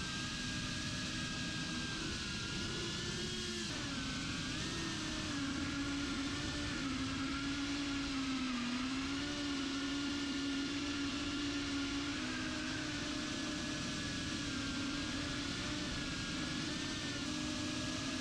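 Brushless motors of a small FPV quadcopter whining in flight, their pitch rising and dipping with the throttle, over a steady rushing noise.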